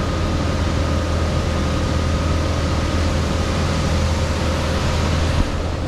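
Small outboard motor running steadily on a dinghy under way, with a rush of water and wind over it; the motor's low hum drops away near the end.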